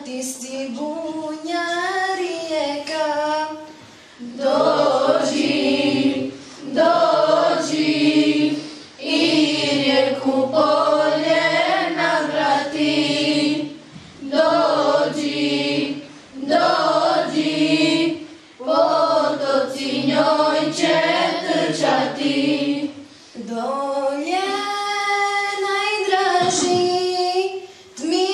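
Girls' voices singing an Islamic devotional hymn unaccompanied into a microphone, in short sung phrases with brief pauses between them.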